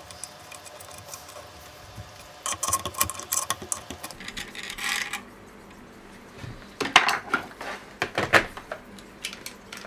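Clinks and rattles of small metal parts and a lamp fitting being handled and tightened against a bench drill's cast-iron head, in two spells of sharp clicks with a quieter gap between them.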